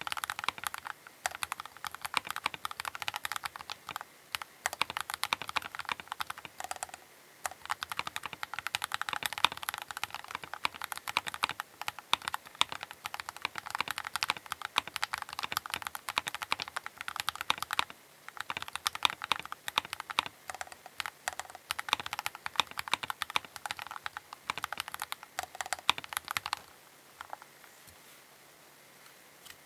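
Keychron K8 Pro tenkeyless mechanical keyboard being typed on at a fast, steady pace, a rapid stream of key clicks with a couple of brief pauses. The typing stops near the end.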